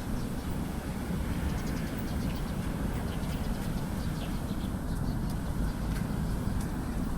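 Steady low rumble of city road traffic from a nearby ring road, with faint short high chirps scattered over it.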